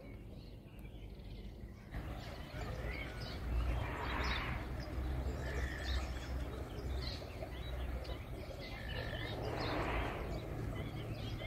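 Birds chirping now and then, short calls repeated a few times, over a low steady outdoor rumble with two soft swells of noise.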